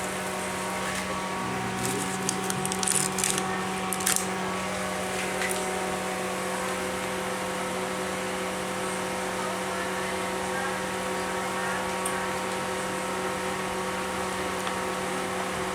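Steady hum of a small motor or fan, holding one unchanging pitch with a few higher tones over it, with a few light clicks and knocks in the first few seconds.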